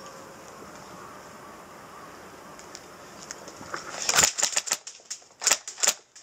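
A quick, irregular run of about a dozen sharp clicks and clacks, starting about three and a half seconds in and lasting about two seconds. Before them there is only a faint steady hiss.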